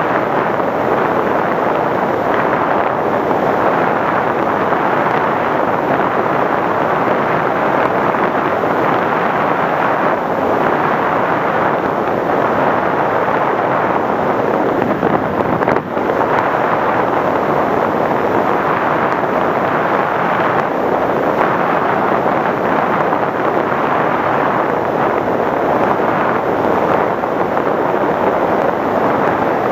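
Steady rush of airflow over the onboard camera microphone of an FPV Raptor model plane in flight, dipping briefly about halfway through.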